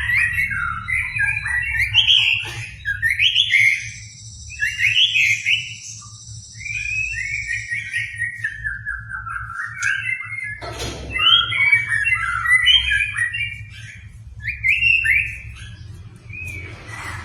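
White-rumped shama (murai batu) singing a rapid, varied song of whistled and chattering phrases with short pauses, over a low steady hum. A high thin steady sound runs behind the song for a few seconds in the first half.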